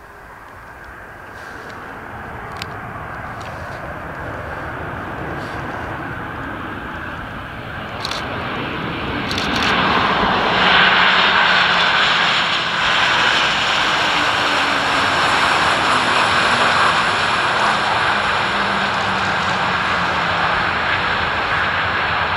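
A Boeing 737-800's CFM56-7B jet engines during the landing roll. The jet noise swells as the airliner rolls past and is loudest about ten seconds in, with a steady high whine over the rush.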